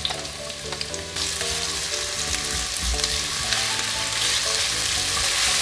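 Sliced onion and celery sizzling in hot olive oil in an enamelled pot as they are stirred with a wooden spatula. A few light clicks as the slices drop in, then the sizzle swells about a second in and keeps growing louder.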